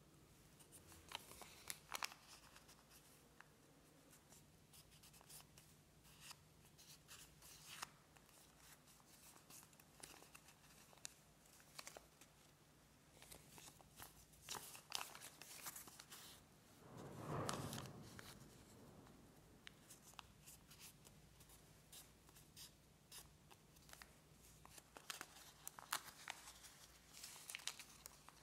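A sheet of origami paper being folded and creased by hand: quiet rustling with many small, sharp crackles as folds are pressed. About two-thirds of the way through comes one louder, soft rush of sound lasting about a second.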